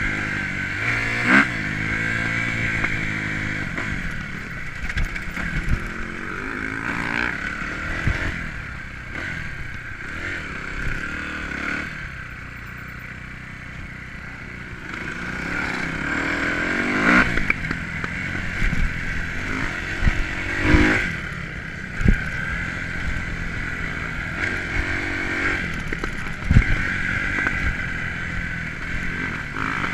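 Kawasaki KX250F single-cylinder four-stroke motocross engine heard from on the bike, revving up and down repeatedly as it rides a dirt track. It eases off to a quieter stretch about midway before pulling hard again. There are scattered sharp knocks and clatter from the bike over the terrain.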